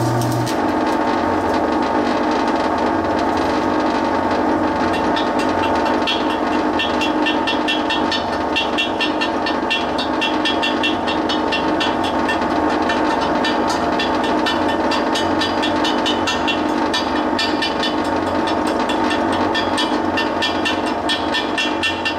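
Stick welder running with a steady, rattling mechanical racket, which the owner puts down to mud dauber nests built on its cooling fan. A low hum from the welding arc cuts off about half a second in, and from about six seconds in rapid light ticks run over the din.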